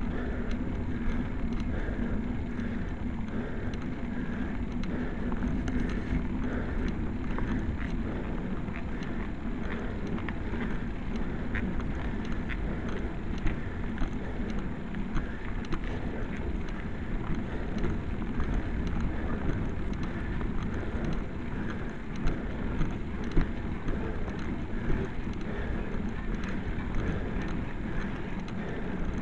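Wind buffeting the microphone of a camera mounted on a road bike ridden in a group, over a steady road rumble. Scattered light clicks and rattles come from the bike rolling over rough tarmac.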